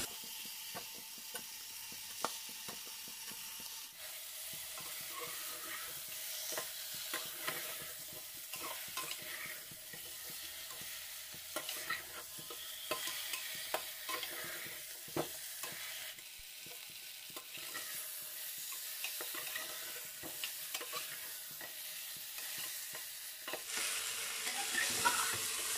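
Pork leg pieces frying in spiced onions in a pressure cooker pot, sizzling steadily, while a metal spatula stirs and turns them, with scattered clicks and scrapes of the spatula against the pot.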